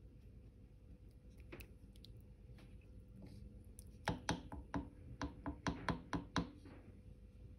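Wooden spoon stirring thick meat sauce in a crock pot's stoneware insert, faint at first. About halfway through, a quick run of about ten knocks, four or five a second, as the spoon strikes the pot.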